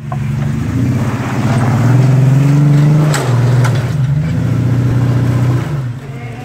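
Jeep Wrangler engine revving under load as it crawls over boulders, its pitch climbing over the first three seconds, then dropping suddenly with a sharp knock. It holds steady again before easing off near the end.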